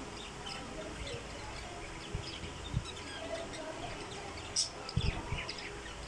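A cage full of budgerigars chirping and chattering, with many short high chirps overlapping throughout. A few short low thumps are heard, the loudest about five seconds in.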